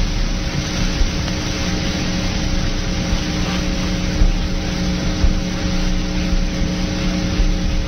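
Steady loud static hiss with a low, steady hum underneath, the noise of a lost radio transmission after the signal has dropped.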